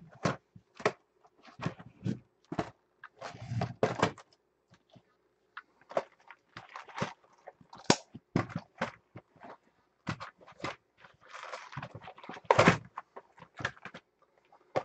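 Sealed cardboard trading-card boxes being handled and set down on a table: a string of irregular knocks and thuds, with brief rustling twice.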